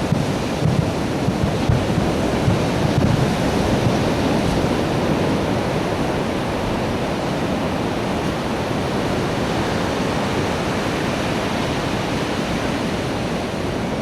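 A steady rush of wind buffeting the microphone over breaking surf, with a few low thumps in the first few seconds.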